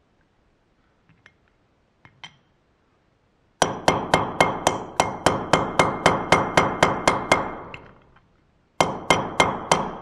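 Hammer blows on a steel driver tube seated on a wheel bearing in a motorcycle's rear sprocket carrier, driving the bearing home: a quick run of sharp, ringing metal strikes, about four a second, starting a few seconds in and lasting about four seconds, then after a short pause four more strikes near the end. A few light metal clicks come first as the tube is set on the bearing.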